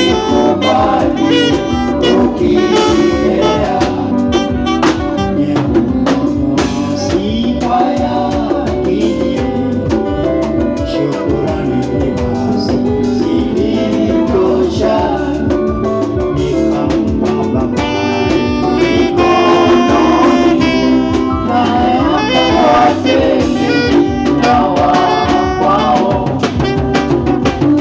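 Live bango band playing: a man's singing voice over saxophone lines and a drum kit.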